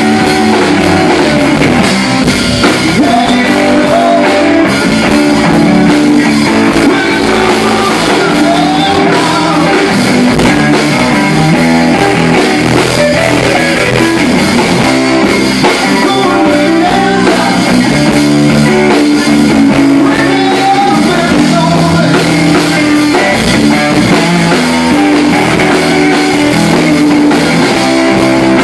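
Live rock band playing: electric guitar, bass guitar and drum kit, loud and continuous, with a man singing.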